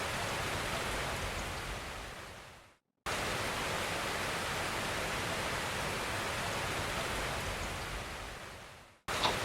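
Steady rushing air noise from a running ceiling fan, with no grinding or rhythmic knock to be heard. It fades out to silence twice, about three seconds in and again near the end, each time starting again abruptly; a short click follows the second restart.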